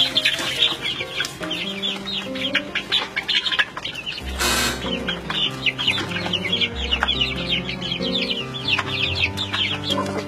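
Hens clucking as they crowd a feeder of black soldier fly larvae, with background music of held notes underneath and a brief hiss about four seconds in.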